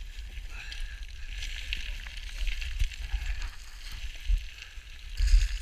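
Boots crunching and sliding on loose scree, many small stone clicks and scrapes underfoot, over a low rumble of wind buffeting the microphone.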